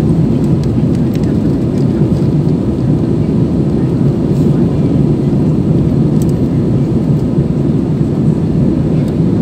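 Loud, steady cabin noise of a jet airliner climbing after takeoff: the engines and rushing air make an even, deep rumble inside the cabin.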